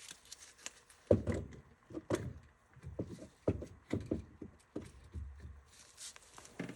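Irregular light knocks and clunks of hand tools being handled and set onto a tie rod nut, roughly one or two a second.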